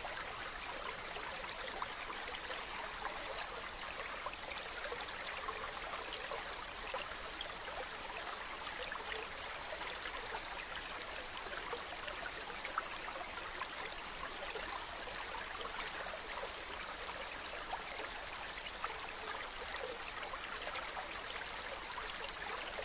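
Stream of running water, a steady even rush with small splashes and trickles throughout.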